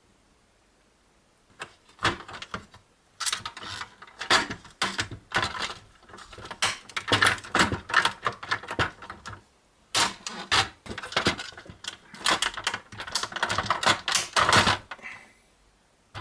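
Rapid clicking and clattering of an HP Photosmart C3180 inkjet printer's plastic gears and rubber-covered metal roller shafts as they are worked loose and pulled out of the printer's plastic chassis. The clatter starts about a second and a half in, comes in quick runs with short breaks, and stops about a second before the end.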